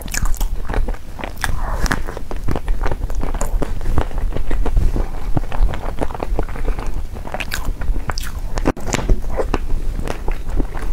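Close-up biting and chewing of a chocolate-coated dessert. Many crisp crackles run through it as the chocolate shell is bitten and chewed.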